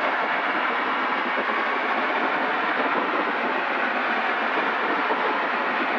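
Steady cabin noise of a Zenith CH750 Cruzer light aircraft in level flight: engine, propeller and wind blending into an even, unchanging rush.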